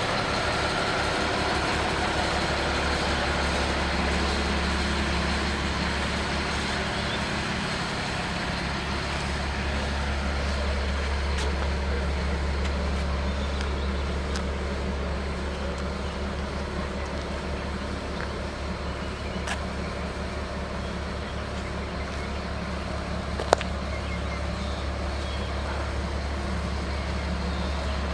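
A truck-type engine idling steadily with a low hum. A single sharp click near the end is the loudest moment.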